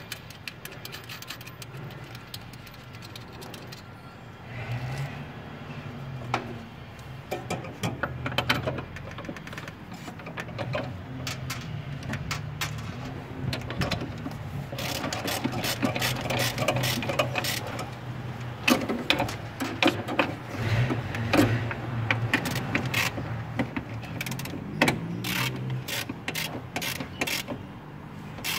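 Ratchet wrench clicking in quick runs with metal-on-metal taps, tightening the mounting of a new brake master cylinder on the brake booster. The clicking is sparse at first and grows rapid and continuous in the second half, over a steady low hum.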